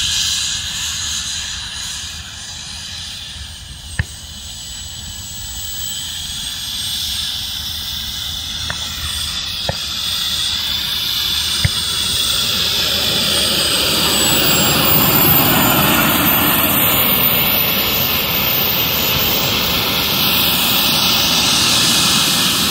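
Model gas turbine of a Carf Ultra Flash Evo RC jet running as the jet taxis on grass: a high, thin whine over a rushing exhaust, growing louder as the jet comes closer. A few sharp clicks come in between about four and twelve seconds in.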